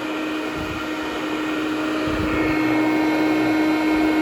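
Hoover Conquest Widetrack commercial direct-air upright vacuum running on low-pile carpet tile: a steady motor-fan rush with one strong steady whine, a few low thuds, and a slight rise in loudness about halfway through.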